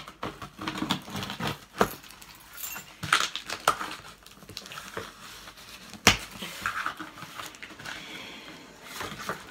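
A key is dragged through the packing tape on a cardboard shipping box while the key ring jangles, with scraping and rustling of the cardboard. Short clicks and rasps come irregularly, and the sharpest click is about six seconds in.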